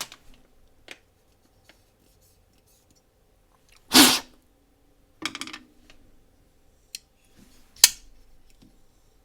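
Holt Haptic folding knife being flipped open and shut: a few sharp snaps as the blade swings out and locks, the loudest about 4 s in and another near 8 s, some followed by a short ringing tone, with small clicks between. The pivot has just been cleaned and relubed, and the repeated flipping is wearing it back in.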